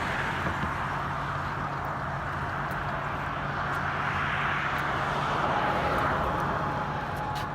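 A motor running steadily under a rushing noise that swells a little in the middle.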